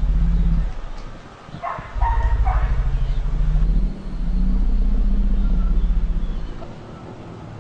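A low, pulsing motor-vehicle engine rumble that comes in stretches and fades out near the end, with a dog barking twice about two seconds in.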